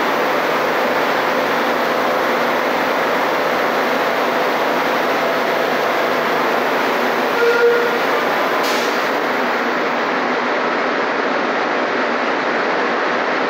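Madrid Metro Serie 5000 train standing at the platform with its on-board equipment running: a steady, even noise. A short tone sounds once about halfway through.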